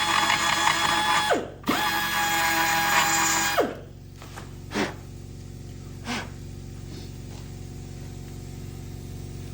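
Power grinder whining at full speed while dressing down the weld on a re-headed bolt. It winds down briefly about a second and a half in, starts again, and stops a couple of seconds later, followed by two short blips of the tool over a low steady hum.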